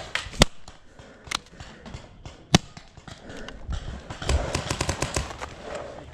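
Paintball markers firing: two sharp pops about two seconds apart, with a fainter pop between them, followed by a stretch of rapid small clicks and rustling.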